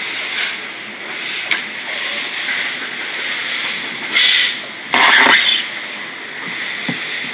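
Clear plastic bag rustling and crinkling as a recliner base is tipped out of it and stood on the floor, then two loud bursts of noise about four and five seconds in, the second with a low thump.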